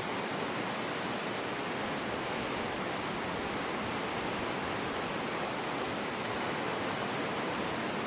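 White-water rapids of the River Findhorn rushing over boulders in a narrow rock gorge: a steady, unbroken rush of water.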